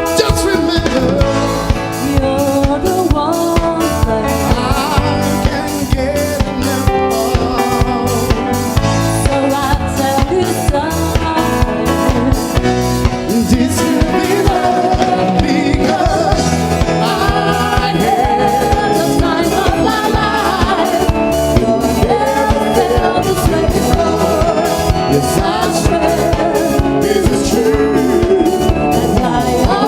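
1980s pop music with a drum kit keeping a steady beat, in a stretch with no clear sung words.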